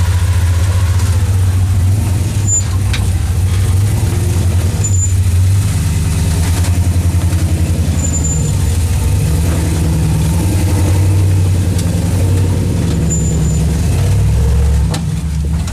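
Toyota FJ40 Land Cruiser rock crawler's engine working at low speed over rocks, its deep note rising and falling with the throttle. Short high squeaks sound four times.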